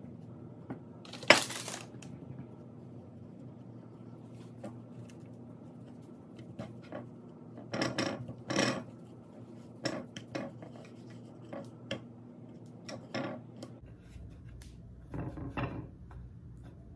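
Fish fillets being dredged in flour on ceramic plates by hand: scattered light knocks and scrapes against the plates, with one sharp clack about a second in. A faint steady low hum runs underneath.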